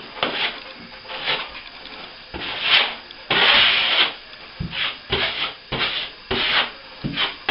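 Hand-sanding a plaster repair: about nine irregular rasping strokes of abrasive on set plaster, the longest and loudest about three and a half seconds in, as the repair gets its final smoothing.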